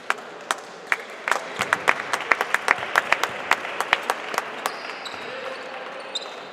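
Basketball bouncing on a court: a run of quick, uneven bounces lasting about four and a half seconds, over the murmur of a crowd in the hall.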